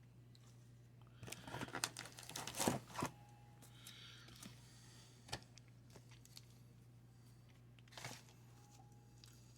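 Wax-paper card pack being torn open and crinkled: a flurry of ripping and crackling about a second in, then a few fainter rustles and another short crackle near the end, over a steady low hum.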